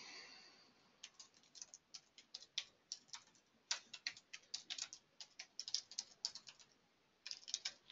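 Typing on a computer keyboard: a quick, irregular run of faint key clicks that starts about a second in, with a couple of short pauses.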